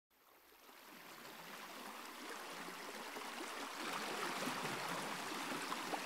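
Running water of a stream, a steady rushing and gurgling that fades in over the first few seconds and then holds.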